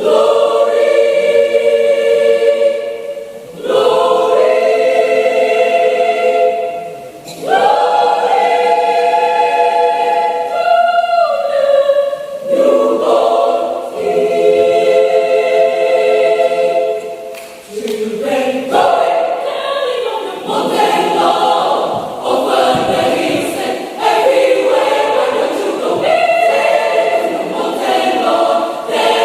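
Mixed-voice adult church choir singing, holding full chords in phrases that break off briefly every few seconds.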